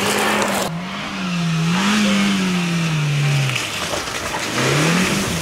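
Suzuki Jimny's 1.5-litre four-cylinder petrol engine revving hard under off-road load. The pitch holds steady at first, then rises and falls several times, sinks low a little past the middle and climbs again near the end.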